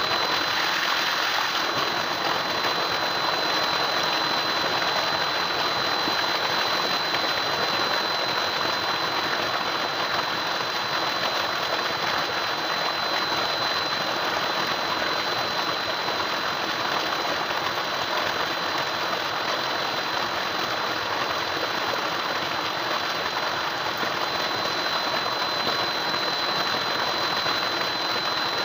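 Tubewell pump running steadily, a continuous mechanical clatter mixed with rushing water, with a thin steady high whine over it.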